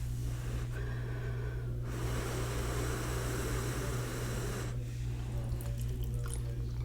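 A long, airy mouth sound from the eater over a bowl of noodles, starting about two seconds in and lasting nearly three seconds, over a steady low hum.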